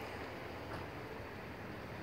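Quiet, steady outdoor background noise: an even hiss with no distinct sounds standing out.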